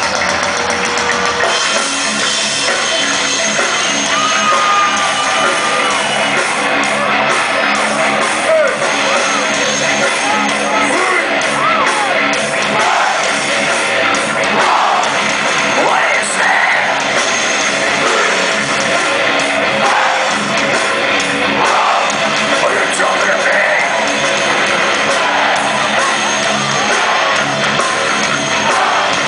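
Heavy metal band playing live and loud: electric guitars, bass and drums.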